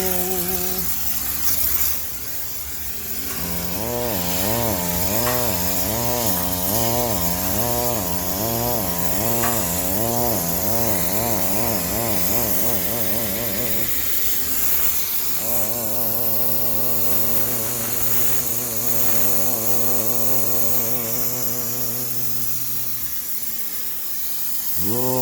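High-pressure steam cleaner running, its motor humming with a wavering pitch over the hiss of steam, as a washing machine is steam-sterilized. The hum drops out briefly about fourteen seconds in, then starts again.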